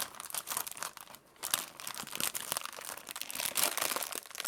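Plastic Oreo packet crinkling and tearing as it is pulled open, a dense run of crackles with a brief lull about a second in.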